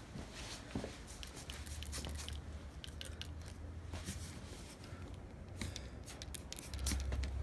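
Faint handling noise from a phone being moved about: scattered small clicks and rustles over a low background hum.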